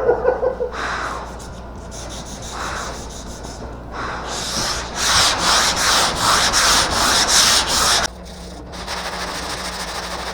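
Sandpaper being rubbed back and forth over body filler on a car's bodywork. The strokes are softer at first, then grow faster and louder for a few seconds before stopping abruptly.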